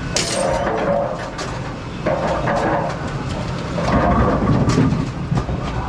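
Brunswick bowling pinsetter machinery running: a steady mechanical rumble and clatter with a few sharp clanks.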